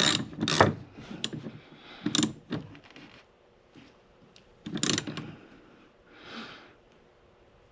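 Ratchet wrench clicking in short strokes as it tightens a wiper arm's retaining nut. There are a few strokes at first, then single ones about two and five seconds in.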